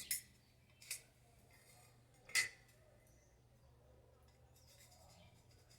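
A few short, light clinks and taps of hard objects being handled and set down on a workbench: two right at the start, one about a second in, and the loudest about two and a half seconds in.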